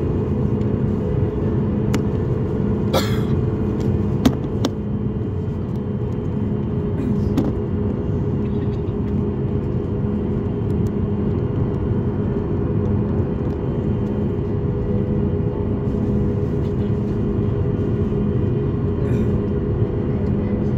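Cabin noise of a Boeing 737 MAX 8 taxiing, heard from a window seat over the wing: its CFM LEAP-1B jet engines run steadily at taxi power as a low rumble, with a faint regular pulse in the hum and a few light clicks.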